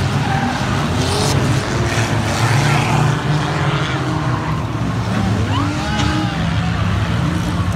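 A pack of enduro stock cars racing around a short oval, many engines running together in a dense, steady drone.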